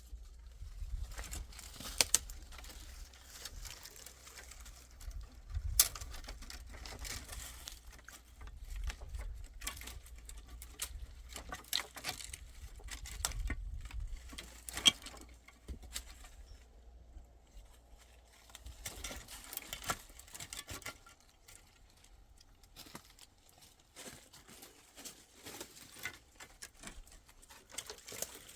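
Irregular rustling, pattering and small knocks from something being handled, with a few sharper clicks (the loudest about 2, 6 and 15 seconds in) and a low rumble through the first half.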